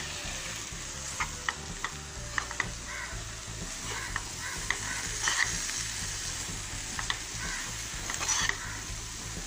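Chicken masala frying in a pan with a steady sizzle while chopped tomatoes are stirred in, the spatula scraping and clicking against the pan many times.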